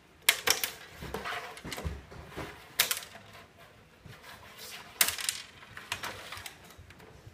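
Plastic clacks and knocks as Playmobil hockey figures are handled, slid and set down on a plastic tabletop hockey rink, with a few sharp clicks standing out about three and five seconds in.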